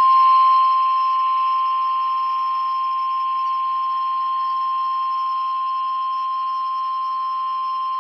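NOAA Weather Radio warning alarm tone: a single steady 1050 Hz tone that cuts off near the end, with a faint hiss beneath it. It is the signal that a warning message follows.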